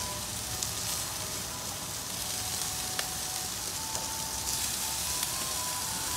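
Meat sizzling on a barbecue grill as its fat renders and burns off: a steady sizzle with a few sharp pops.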